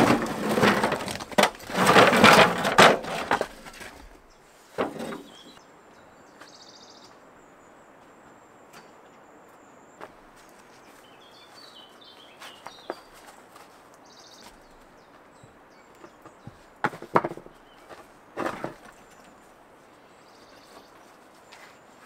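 Stones being handled and shifted: loud clattering and scraping for the first three seconds or so, a single knock about five seconds in, and two short knocks near the end. Birds chirp faintly in the quiet between.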